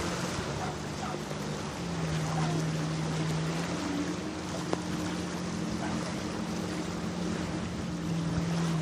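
A boat engine droning steadily, its pitch shifting slightly a few times, over a constant rush of wind and water noise.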